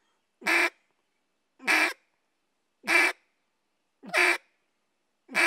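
Echo Timber duck call blown as five single quacks, evenly spaced about a second apart, each note short and cut off with a hard ending made with the tongue.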